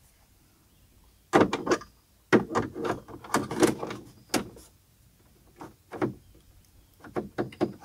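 Hard plastic clicks, knocks and rattles from a Holley Sniper handheld unit being handled in its 3D-printed dash mount. They come in two busy clusters, starting about a second in, then a few lighter taps near the end.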